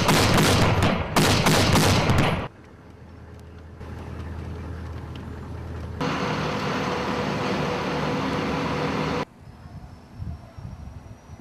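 Several rapid bursts of heavy automatic gunfire, stopping abruptly about two and a half seconds in. Later an armored military truck's engine runs with a steady hum for about three seconds, then cuts off suddenly.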